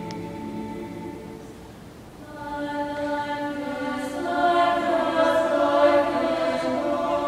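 Mixed choir singing sustained chords. A held chord fades to soft, then a new phrase enters about two seconds in and swells louder.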